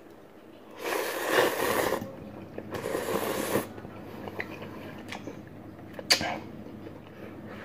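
A person slurping noodles from a bowl of noodle soup: two long slurps in the first few seconds, then small mouth clicks and a short, sharp slurp about six seconds in.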